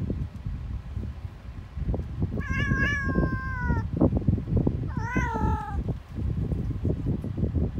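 A cat meowing twice. The first meow is drawn out and drops in pitch at its end; the second comes about five seconds in, is shorter, and rises then falls. A steady low rumble runs underneath.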